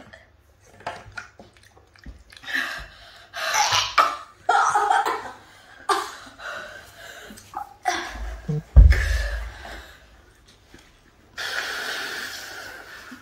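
Heavy breathing and hissing, puffing breaths through an open mouth from someone whose mouth is burning after eating an extremely hot chili chip. A loud, low blow of air comes about nine seconds in, and a long hissing breath near the end.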